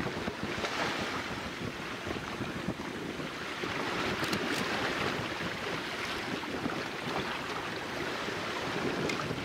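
Wind buffeting the microphone with a low rumble over the hiss of small waves washing on the shore, the wash swelling about half a second in and again a few seconds later.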